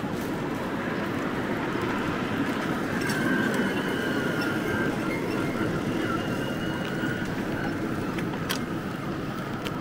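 Street traffic at a city intersection: a steady rumble of passing vehicles and motor scooters. A faint high, steady whine runs for a few seconds in the middle, and a couple of sharp clicks come near the end.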